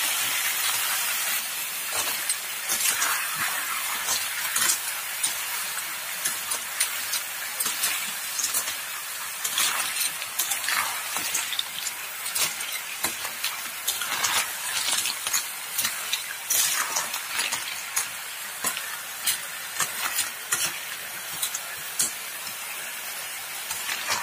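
Snails in their shells and vegetable chunks frying in oil in a metal wok, sizzling steadily while a metal spatula stirs them, with frequent scrapes and clicks against the pan.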